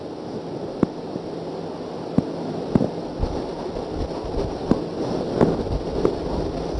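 Whiteboard marker drawing on a whiteboard, touching down and lifting with sharp clicks about once a second, over a steady hiss.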